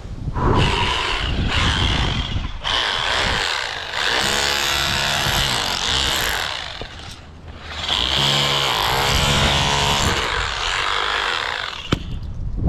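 Power tool running in three long bursts, its pitch sagging and recovering under load as it works on the chimney masonry.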